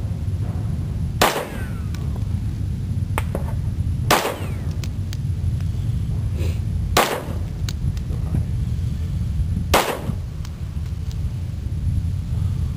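Four single handgun shots fired at a slow, even pace, about three seconds apart, each a sharp crack with a short ringing tail, over a steady low rumble.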